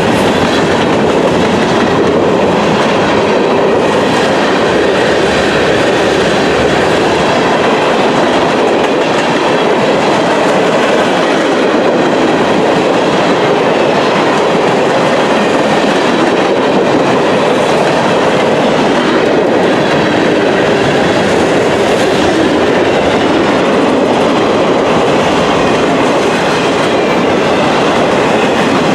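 A train's cars rolling steadily past close by, steel wheels clacking over the rail joints in a loud, continuous rumble.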